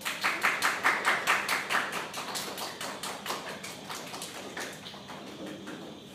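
A small audience applauding, starting all at once and loudest in the first two seconds, then slowly dying away to a few scattered claps.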